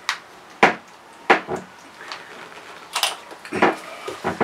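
A handful of sharp clicks and knocks, about seven spread over four seconds, from the oil-change pump's alligator clamps and leads being handled at the boat's battery.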